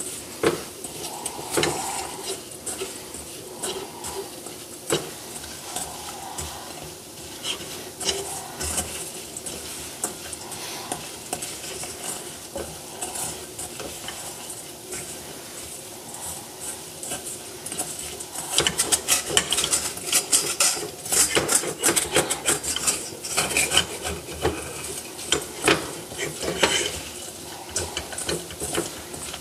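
Wooden spatula stirring sugar-crusted almonds and hazelnuts in a stainless steel saucepan: the nuts rattle and scrape against the pan as the dry, sandy sugar coating is worked over the heat to melt it again into caramel. The stirring gets faster and louder about two-thirds of the way in.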